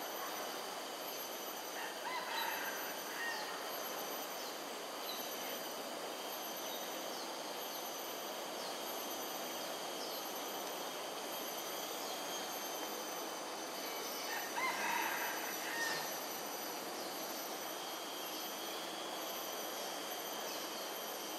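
A rooster crowing twice in the distance, once a couple of seconds in and again about two-thirds of the way through, over a steady background hiss with faint high bird chirps.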